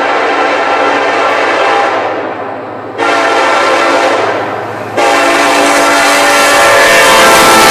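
Locomotive air horn blowing at a grade crossing in separate chord blasts. One blast fades out about two seconds in, another starts suddenly at three seconds, and a third starts at five seconds and is held, getting louder as the train nears.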